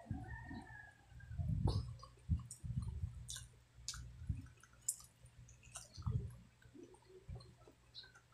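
A person eating braised pork hock by hand: wet, sticky chewing and lip smacks with irregular sharp clicks.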